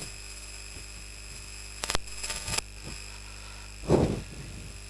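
Steady electrical hum and hiss on a lapel microphone, with a few sharp clicks about two seconds in and a short breathy rush about four seconds in.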